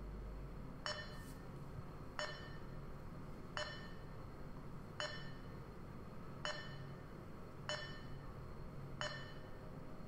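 Short electronic beeps about every 1.3 seconds, each ringing briefly with a few pitched overtones. The CMM's TP20 touch-trigger probe is being signalled as it takes a point on each beep during program playback.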